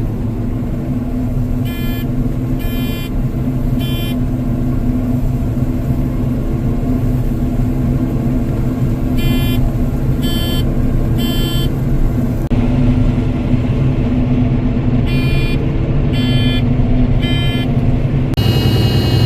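Combine harvester running steadily while picking soybeans, with an alarm beeping in sets of three about every six or seven seconds: the grain-tank-full warning. Near the end a higher steady tone comes in.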